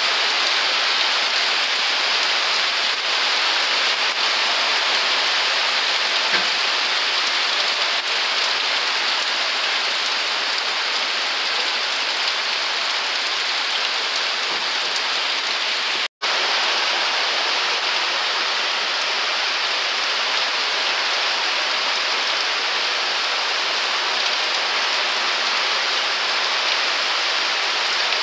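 Heavy rain pouring steadily onto trees and banana leaves, an even hiss without letup. The sound cuts out for an instant a little past halfway through.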